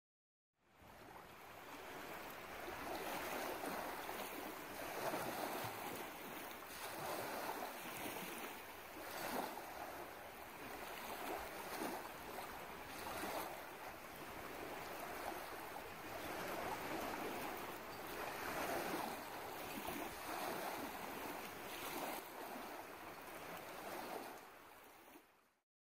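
Small waves lapping on a stony lakeshore, a washing noise that swells and eases every second or two. It fades in just after the start and fades out just before the end.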